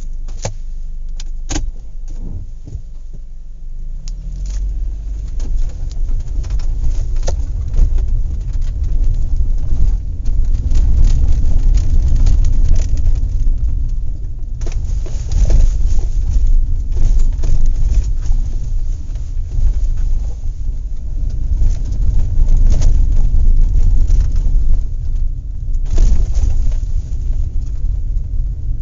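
Inside a car driving on a dirt road: a steady low rumble from the road and engine, with the cabin and load rattling and knocking. A few sharp clicks come in the first couple of seconds, and the rumble grows louder about four seconds in.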